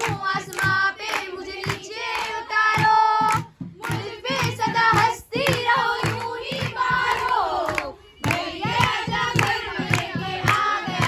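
A group of women singing a traditional wedding song together, accompanied by a dholak hand drum and hand-clapping that keep a steady beat.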